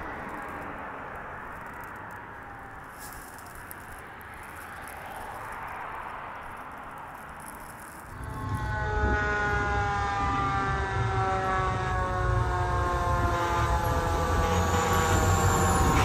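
Fire-truck siren faint in the distance at first. About halfway through, a fire truck's diesel engine rumbles up close and loud, with a siren tone sliding slowly down over several seconds.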